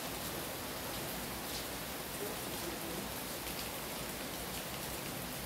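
Rain falling steadily: an even hiss with scattered ticks of individual drops.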